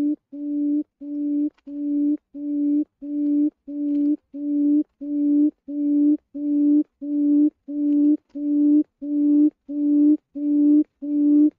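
Chim cút (quail) call: a long, evenly spaced series of low hooting notes, about three every two seconds. Each note swells in loudness and then stops short. It is a repeating lure call of the kind used to draw quail into traps.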